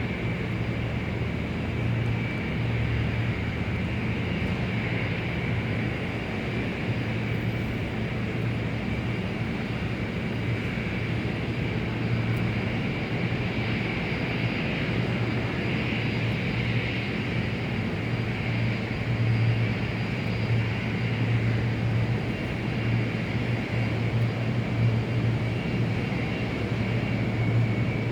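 Large airport exterior ambience: a steady mix of jet aircraft engines running at a distance, with a constant low hum and a high turbine whine, swelling slightly toward the end.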